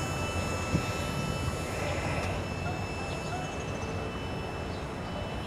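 Rear cars of a CSX freight train rolling away on the rails: a steady rumble of wheels on track, slowly fading, with a faint steady high tone over it.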